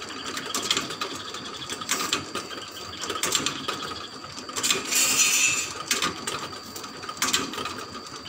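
Sprocket gears of a multi-spit rotisserie turning, clicking and rattling unevenly as the teeth engage. A brief hiss rises about five seconds in.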